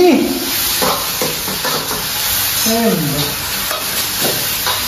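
Kitchen food-preparation sounds: a steady hiss with a few light knocks and handling noises, and a voice rising and falling briefly about three seconds in.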